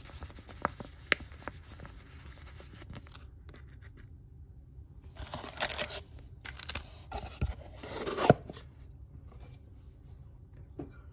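Wrapped baseball card packs and their cardboard box being handled: a few light clicks, then two stretches of crinkling, rustling wrapper noise about five and seven seconds in, the second ending in a sharp knock.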